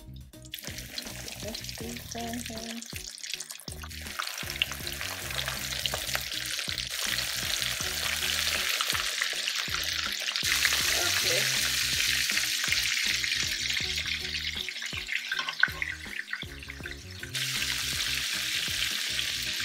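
Floured chicken pieces deep-frying in hot safflower oil in a cast iron skillet: a steady, loud sizzle and crackle that jumps in level a few times. Low background music plays beneath it.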